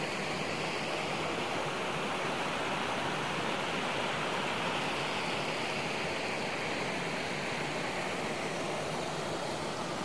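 Shallow mountain stream flowing steadily over rocks and gravel riffles.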